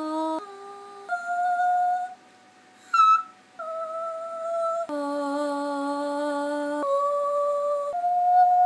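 A woman singing a slow run of held, wordless 'ooh' notes, about a second or two each, layered into a small choir of her own voice. There is a short break with a brief high squeak about three seconds in.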